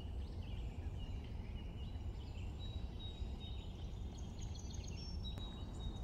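Several small songbirds chirping and whistling, with short trills and a held high whistle near the middle, over a steady low rumble.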